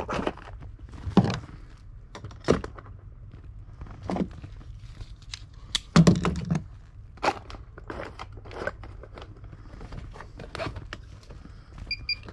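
Handling noise of tools and a work light being moved around: irregular knocks, clicks and crinkling, the loudest knocks about a second in and about six seconds in. Two short high electronic beeps sound near the end.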